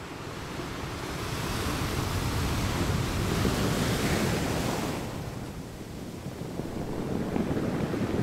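Ocean waves washing onto a sandy beach, swelling to a peak about halfway through, easing, then building again near the end, with wind rumbling on the microphone.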